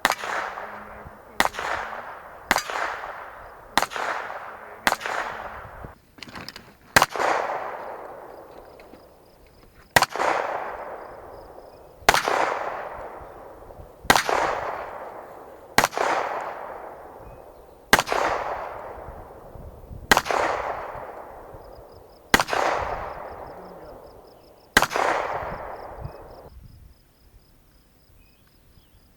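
Gunshots fired one at a time at a steady pace, each followed by a long echoing tail. The first few come about a second apart, then they slow to about one every two seconds. The last echo cuts off suddenly near the end.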